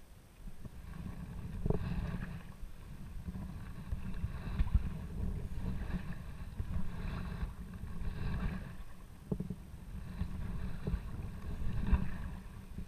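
Kayak paddle blades dipping and pulling through calm river water in a steady rhythm, about one stroke a second, over a low rumble.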